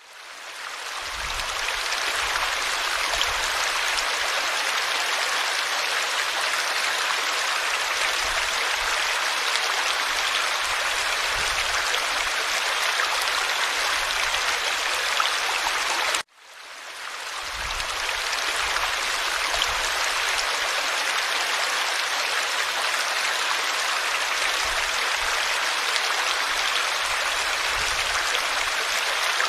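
Forest stream flowing steadily, a dense rushing babble of water. It fades in at the start, cuts out suddenly about sixteen seconds in, and fades back up over a couple of seconds.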